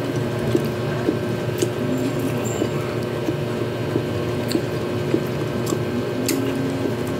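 A person eating chicken and rice by hand: small wet chewing and squishing noises with a few sharp clicks, over a steady hum that carries a faint tick nearly twice a second.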